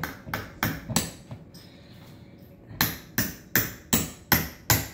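Hammer tapping the small built-in nails of a Kwik-Hang curtain rod bracket into the top of a door frame. There are a few light taps, a pause of about a second and a half, then an even run of harder strikes, about two or three a second.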